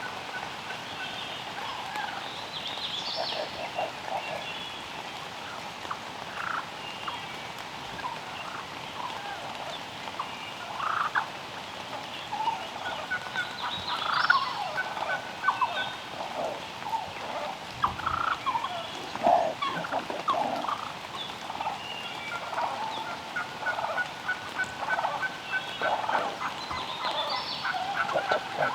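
Wild turkeys gobbling, over and over, with short rattling calls repeating through the whole stretch.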